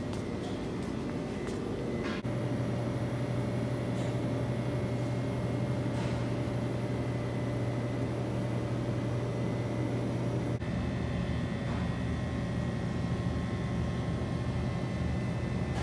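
Steady low machine hum of a grocery store's refrigerated display cases and ventilation, with a few faint clicks.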